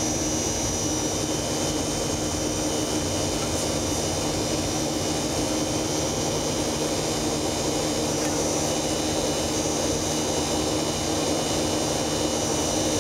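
Steady cabin roar of a Boeing 737-500 in its climb after takeoff, heard from inside the cabin: CFM56-3 jet engines and rushing airflow, with a low hum and a thin high whine.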